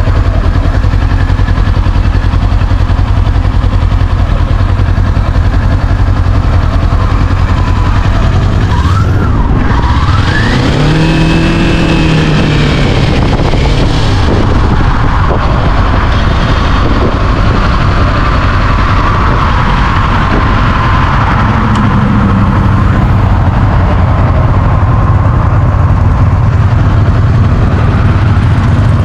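A Kawasaki Ninja 400 motorcycle riding along, with its engine drone under heavy wind noise. About ten seconds in, the engine pitch rises as the rider accelerates.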